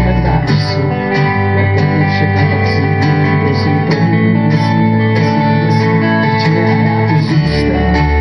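A live folk-pop band playing: strummed acoustic guitar with electric guitar and upright double bass. The deepest bass notes drop away about half a second in and come back near the end.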